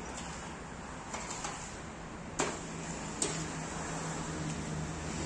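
Steady background noise with a low hum, broken by a few sharp knocks or clicks.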